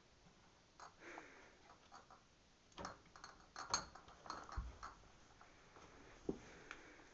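A cat climbing into a plastic recycling bin: faint rustling, scattered clicks and knocks as its paws and body press on the cardboard boxes and plastic inside, with a soft thump about four and a half seconds in and another knock near the end.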